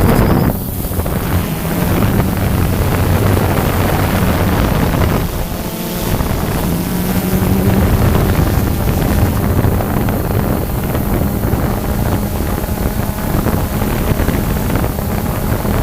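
Steady motor hum with wind noise on the microphone, dipping briefly about five seconds in.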